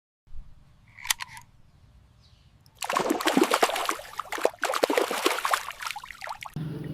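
A short click about a second in, then from about three seconds in water splashing and trickling while a muddy toy is washed clean. The splashing stops shortly before the end.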